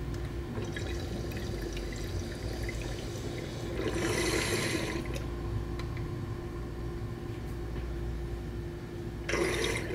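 Water bubbling in a glass mason-jar bong as smoke is drawn through it in one long pull, with a louder rush of air about four seconds in. A breathy exhale comes near the end.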